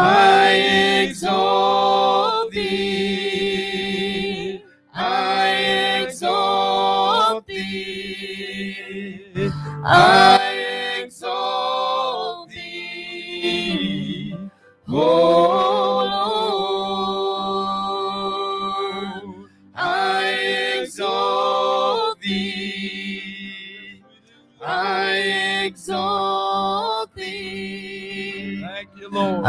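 A man and a woman singing a worship song into microphones in sung phrases of a few seconds each, with short breaks between them, over a steady keyboard accompaniment.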